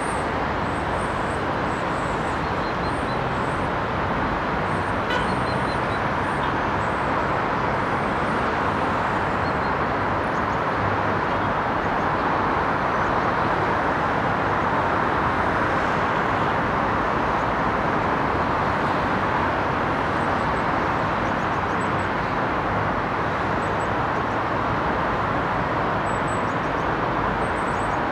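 Distant city traffic: a steady, even wash of road noise with no single vehicle standing out.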